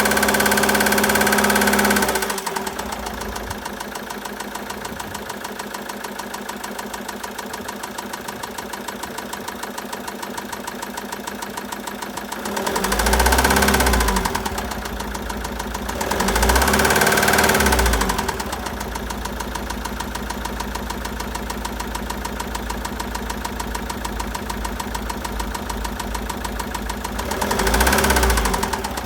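Citroën Jumper II's 2.2-litre four-cylinder diesel running with a knock from bearing damage: revved at first, it drops to idle about two seconds in, is revved up twice in the middle and once more near the end.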